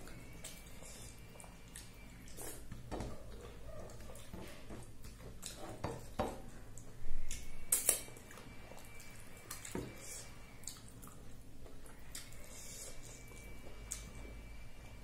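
Close-miked eating by hand: fingers mashing and mixing rice, dal and curry on a plate, with wet squishing and chewing and many small clicks and taps against the plate. A louder cluster of sharp taps comes about seven seconds in.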